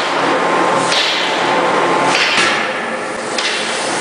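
CNC fully hydraulic die forging hammer (CFM C88K, 80 kJ) striking red-hot steel in the die, about one blow a second, over a steady hiss.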